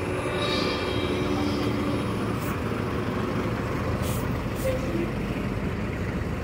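Buses pulling past at low speed in city traffic. The green battery-electric city bus moves off, then a diesel charter minibus passes close with its engine running. There are a few short hisses about two and a half and four seconds in.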